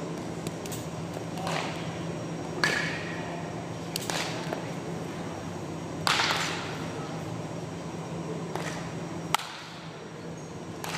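Baseball batting practice: a wooden bat swung and striking balls, heard as several sharp knocks a second or two apart, each with a short echo in the large hall, over a steady low hum.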